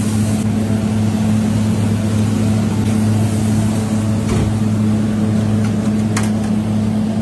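Steady low machine hum with a constant drone, broken by two short clicks, one a little past four seconds and one about six seconds in.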